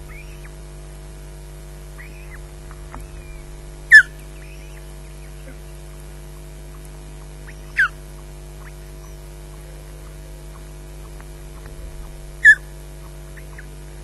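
Osprey calling from the nest: three loud, short whistled calls a few seconds apart, each sweeping in pitch, with fainter chirps in between. A steady electrical hum runs underneath.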